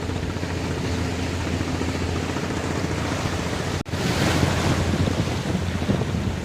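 Strong wind buffeting the microphone over the steady rush of surf on a rocky shore in rough seas. The sound breaks off for an instant about four seconds in and comes back a little louder.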